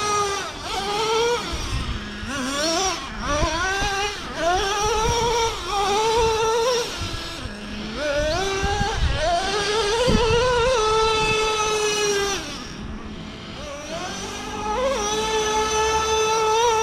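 Traxxas Revo 3.3's two-stroke nitro engine in repeated throttle bursts as the RC truck is driven: the pitch climbs to a high whine, holds, and falls back. It drops to idle briefly about seven and a half seconds in, again around thirteen seconds, and at the very end.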